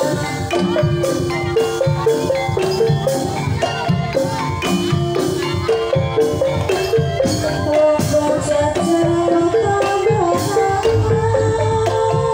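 Javanese gamelan playing a Banyumasan tayub piece. Mallet-struck keyed instruments run a quick melody over kendang hand drums, with hanging gongs behind.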